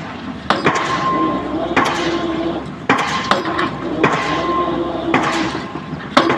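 Excavator drop hammer striking the top of a pile about once a second, six sharp ringing blows, with the excavator's engine running steadily between them.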